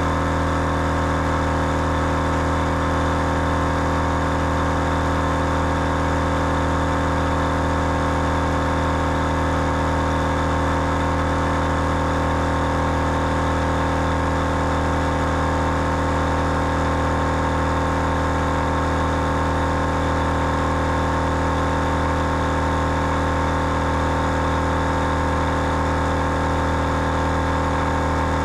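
Big Red Gear twin-head air compressor running under load, pumping up four 4x4 tyres at once through a quad-flate hose kit. A steady mechanical drone at a constant pitch.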